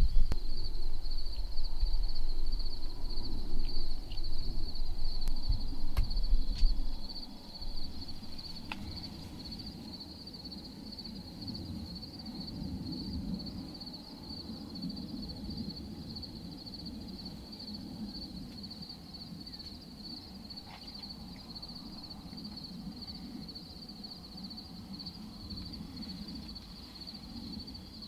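Insects chirping in a steady, high, fast-pulsing trill. A loud low rumble stops about seven seconds in.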